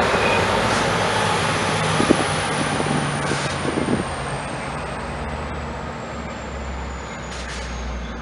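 Amtrak California passenger train with a Caltrans F59PHI diesel locomotive pulling away, its rumble and wheel noise fading steadily as it recedes. A faint high whine falls slowly in pitch throughout, and there is a single sharp clack about two seconds in.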